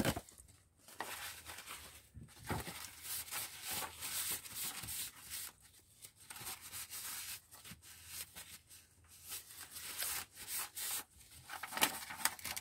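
Paper rustling and rubbing as paper towel and sheets of paper and card are handled and slid about, in irregular bursts. A sharp tap or snap comes right at the start.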